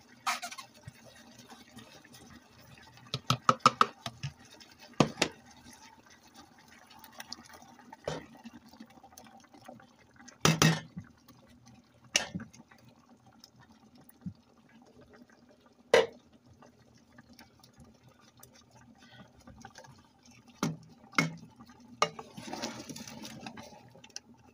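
Wet, pulpy grated onion and water pouring and being scraped from a bowl onto a chicken in a metal cooking pot, with a scatter of sharp knocks of the spoon and bowl against the pot. There is a quick run of taps a few seconds in, and a short stretch of wet stirring near the end.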